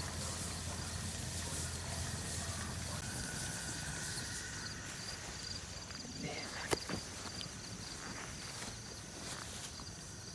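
Outdoor ambience: a steady hiss with crickets chirping high and a low hum for the first few seconds, and a couple of sharp clicks about two-thirds of the way through.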